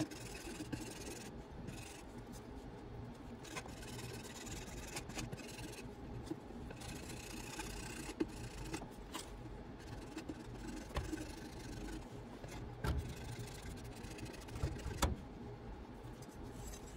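Handling noises: scattered clicks and light knocks over a steady low hum.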